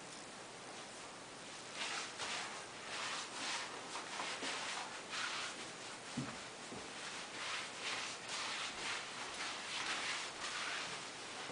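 Socks sliding and rubbing on a hardwood floor during a moonwalk: a long series of soft swishes starting about two seconds in, with a couple of faint thuds near the middle.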